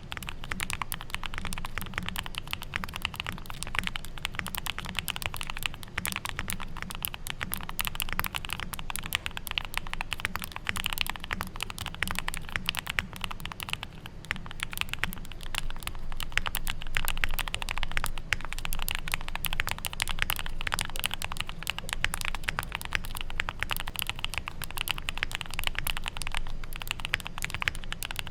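Continuous fast typing on a Neo65 Core Plus mechanical keyboard with Gateron Oil King linear switches, a polypropylene plate, full foams and KBS Lucy keycaps: a dense, unbroken run of keystrokes.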